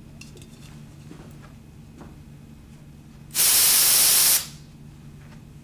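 An aerosol spray can is sprayed in a single burst of about a second, a loud hiss that starts and stops sharply, past the middle.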